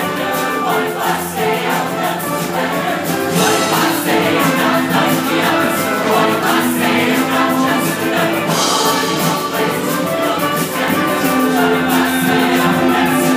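Show choir singing in full ensemble, many voices holding sustained notes together.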